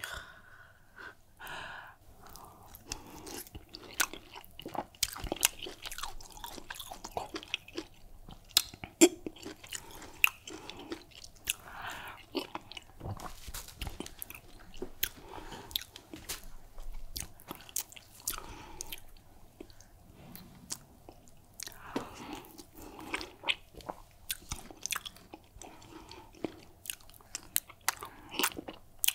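Close-miked chewing of soft fufu dipped in egusi soup, with many sharp wet mouth clicks and lip smacks throughout.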